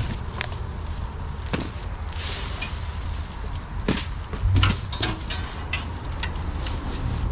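Dry leaves, twigs and brush crunching and snapping as debris is pulled and brushed off a machine, with irregular sharp cracks and the loudest burst about halfway through.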